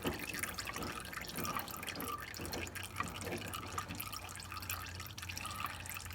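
Used engine oil dripping and dribbling into a drain pan in quick, uneven drips while the engine drains, over a faint low hum.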